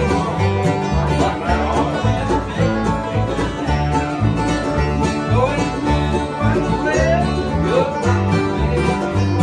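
Bluegrass jam played on acoustic instruments without singing: banjo rolls over strummed and flatpicked acoustic guitars, with an upright bass keeping a steady bass line.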